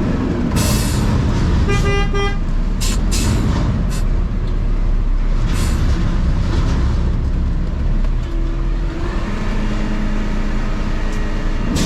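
Heavy truck engine running, heard from the cab, with a short horn toot about two seconds in and several brief hisses.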